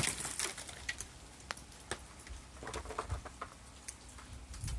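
Ice falling from ice-coated tree branches: a scatter of irregular sharp clicks and patters, loudest and thickest at the start.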